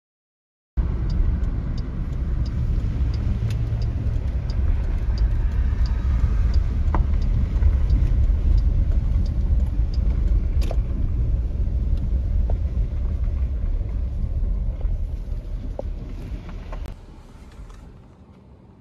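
Car road noise heard from inside the cabin while driving on a gravel road: a steady low rumble with light scattered ticks. It dies away near the end as the car slows to a stop.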